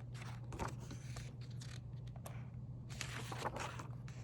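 Pages of a picture book rustling and the book being handled as it is opened, with soft scattered clicks and rustles over a low steady hum.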